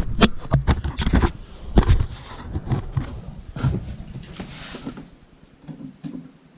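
Work noise from handling tools and materials: a quick run of knocks and clatters, then a brief hiss about four and a half seconds in, and a few quieter knocks near the end.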